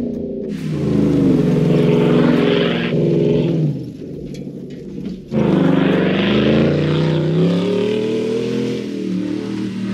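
Chevrolet Silverado's V8 running through an AWE 0FG quad-tip catback exhaust, revving and accelerating hard, its pitch rising and falling. About four seconds in it drops quieter for a moment, then comes back loud suddenly just past five seconds.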